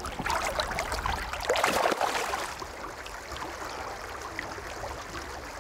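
Water sloshing and splashing around hands holding a rainbow trout in the river, with irregular splashes for the first two and a half seconds, then the steady rush of the flowing river.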